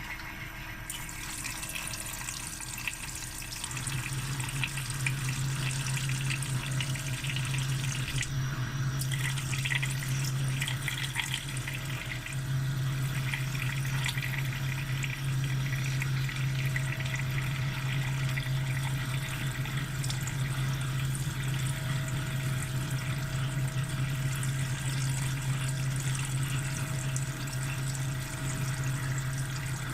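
CNC milling machine running steadily, a low hum with a continuous hiss over it, building up over the first few seconds and then holding even.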